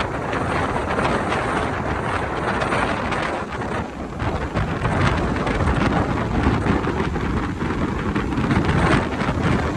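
Strong storm wind buffeting the microphone in gusts, a loud rumbling noise with no break.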